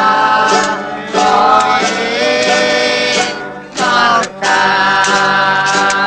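Music with singing: long held sung phrases, broken by short pauses about a second in and again a little past three seconds.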